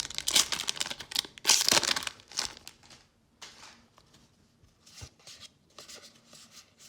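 Plastic booster-pack wrapper crinkling and tearing as a Magic: The Gathering set booster is opened, loudest about one and a half seconds in, then dying down to faint scattered clicks of handling.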